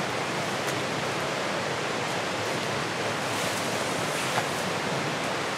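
Steady rushing of river rapids, an even wash of white water.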